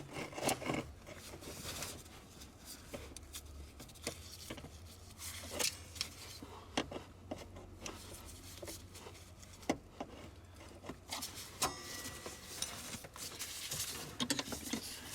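Scattered light clicks and knocks of hand tools and a metal hold-down bracket as a car battery is tightened down, over a low steady hum.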